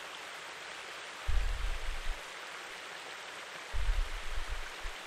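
Steady, even hiss, like running water, broken twice by a low, muffled rumble about a second long: once a little over a second in and again near the end.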